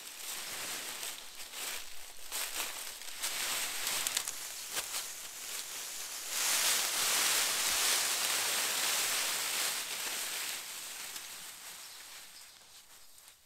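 Rustling of leaves and twigs with small crackles, swelling louder for about four seconds in the middle, then fading.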